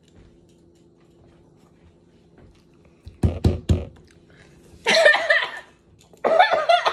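A woman crying out in pain, two wavering wails about five and six and a half seconds in, from the burn of the extremely hot One Chip Challenge chip. Three sharp sounds in quick succession come about three seconds in.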